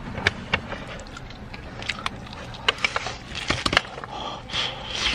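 Eating crispy fried chicken: many short, irregular crunches and clicks of the crust being bitten and chewed.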